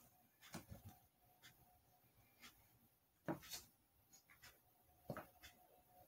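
A balloon being blown up by mouth: faint, short breaths and puffs of air into it, the loudest about three seconds in, with another about five seconds in.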